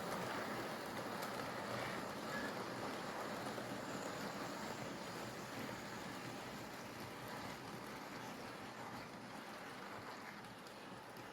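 OO gauge model train of biomass hopper wagons rolling along the track, a steady rumble of wheels on rail that slowly fades as it moves away.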